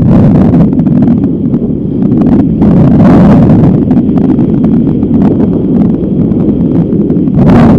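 Strong wind of 11–12 m/s buffeting the microphone with a loud, steady rush that swells in gusts about three seconds in and again near the end.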